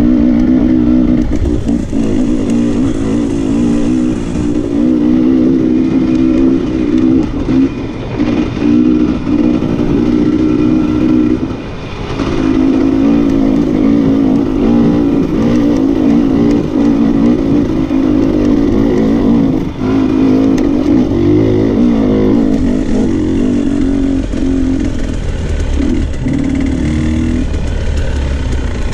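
Dirt bike engine running under constantly changing throttle, the revs rising and falling as it rides over rough trail, with a brief let-off about twelve seconds in and a few knocks along the way.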